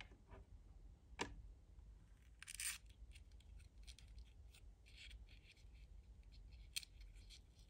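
Fingers opening a tiny paper tea box: a sharp tap about a second in, then soft paper rustling and small crinkles as the cardboard flap is folded back.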